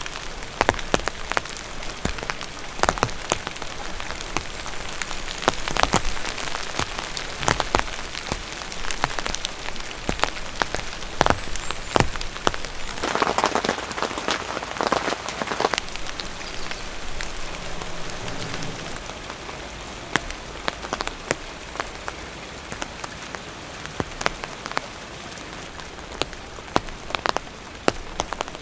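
Cold winter rain falling steadily, with many separate large drops striking a surface close by. A louder stretch of noise comes about halfway through.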